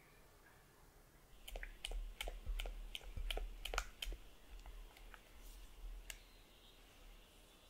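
Silicone spatula mixing thick cheesecake batter in a glass bowl, knocking and scraping against the glass in a quick run of sharp clicks, about four a second, starting about a second and a half in. The clicks grow sparser and stop about six seconds in.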